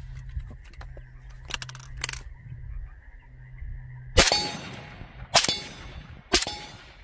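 Three suppressed rifle shots from an AK-pattern rifle, about a second apart, starting a little past halfway. A short metallic ring follows the first and third. The shots check whether the scope held zero after a knock-around torture test, and it held up fine.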